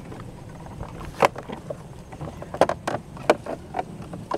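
Plastic clicks and knocks of a Yamaha Mio Sporty scooter's handlebar cover being worked loose and lifted off by hand: a string of about eight sharp, short knocks.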